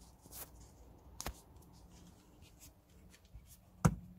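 Small clicks and rustles of a handheld phone or camera being moved inside a quiet car cabin, with a sharper click about a second in and a loud knock near the end, over a faint steady hum.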